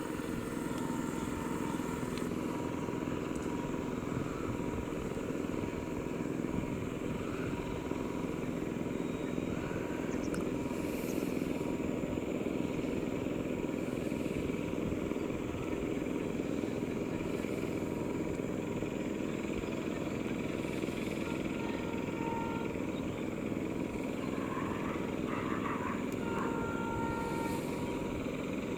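Diesel train running at speed, a steady heavy rumble with no break.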